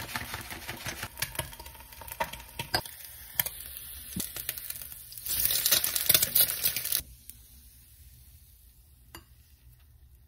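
Crinkling and small clicks of a plastic seasoning packet being shaken over a bowl of rice. About five seconds in, a fried egg sizzles loudly in a frying pan for under two seconds, the loudest sound here, then cuts off abruptly, leaving a faint quiet with one small clink.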